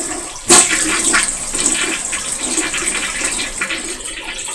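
Toilet being flushed: a sudden rush of water about half a second in, then steady rushing as water drains the bowl.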